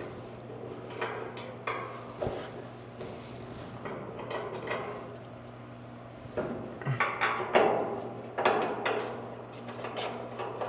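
Scattered metal clinks and knocks of tools and hardware being handled while hood hinges are bolted on, with a denser run of clattering a little past halfway, over a steady low hum.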